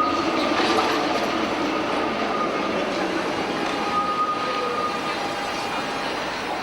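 Tram running on its rails: a steady rumble with thin, high steady tones from the wheels that come and go.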